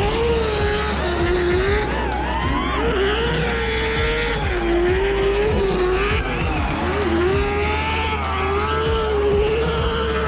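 A car drifting at high revs: the engine's pitch swings up and down as the throttle is worked, with tyres squealing and sliding.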